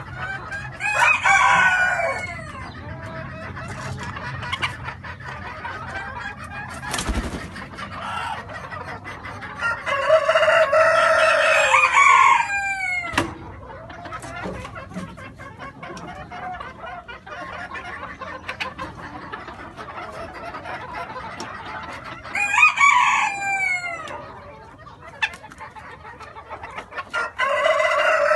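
Splash Cochin bantam roosters crowing four times, the longest crow about two and a half seconds near the middle, over the steady clucking of the hens.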